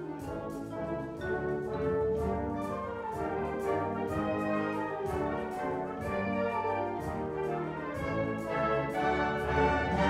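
Concert wind band playing live: brass and woodwinds sounding full, sustained chords over a steady, evenly spaced percussion beat.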